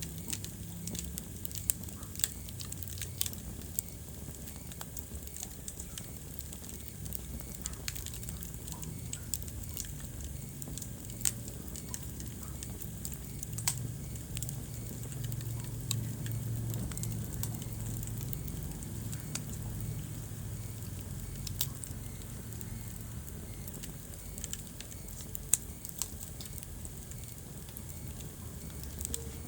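Wood fire burning in a fireplace, crackling with frequent irregular sharp pops and a few louder snaps, over a steady low rumble.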